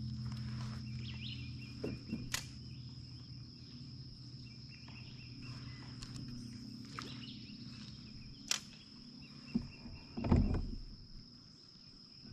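Steady high-pitched insect buzz over open water, with a low hum fading out in the first couple of seconds. A few sharp clicks come about two and eight seconds in, and a dull thump about ten seconds in.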